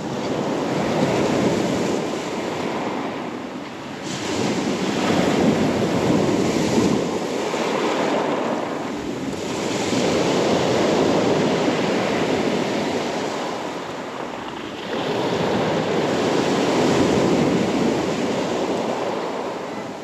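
Sea waves breaking and washing up a pebble beach, the surf swelling and fading in about four surges.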